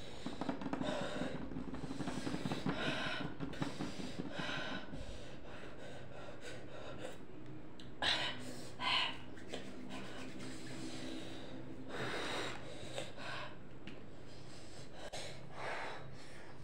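A boy breathing hard through his mouth, with sharp gasps and heavy breaths. The louder ones come about halfway through and again near the end. This is the panting of someone whose mouth is burning from an extremely hot chili chip.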